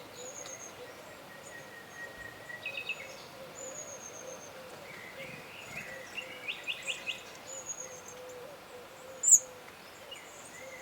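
Woodland birds singing and calling: a mix of short high whistles and quick note series, over a low wavering hoot-like tone. One loud sharp high chirp comes near the end.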